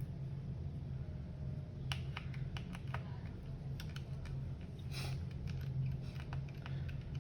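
Irregular light clicks and taps of a small screwdriver and screws on a laptop's plastic bottom case as the cover screws are worked out, over a steady low hum.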